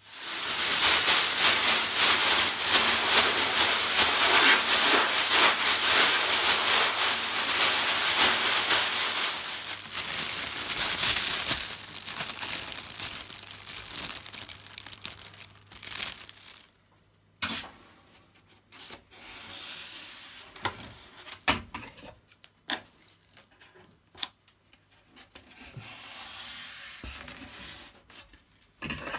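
Aluminium foil crinkling and rustling as it is handled and crumpled by hand, loud and continuous for about the first ten seconds, then thinning out to scattered rustles and ticks. Near the end, a hand rubs tape down onto polystyrene foam.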